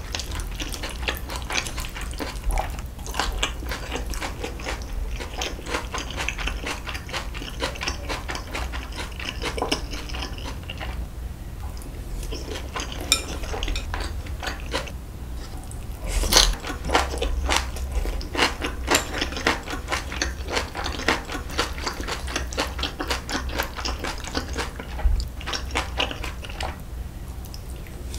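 Close-miked eating: chewing and biting of spicy braised beef short ribs, cabbage kimchi and glass noodles, full of small wet clicks, with a metal spoon and chopsticks knocking on the dishes now and then.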